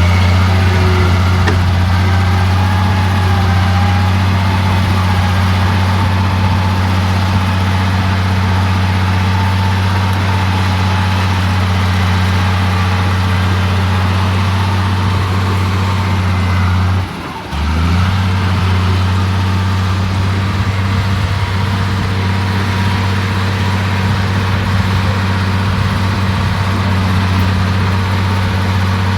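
Bulldozer's diesel engine running at a steady speed, a low even drone. About seventeen seconds in it briefly drops off, then picks back up to the same pitch.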